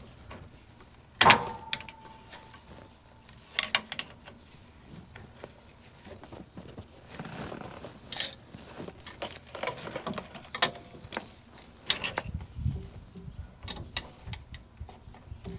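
Metal tools clinking, knocking and scraping against steel brake hardware, with one sharp metallic strike about a second in that rings briefly.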